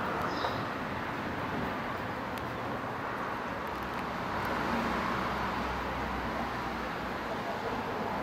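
Steady background noise of distant road traffic. A low rumble swells in the middle and fades about seven seconds in.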